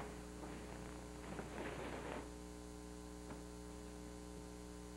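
Steady electrical mains hum with hiss on the recording. Faint distant voices murmur in the first two seconds, and a single faint click comes about three seconds in.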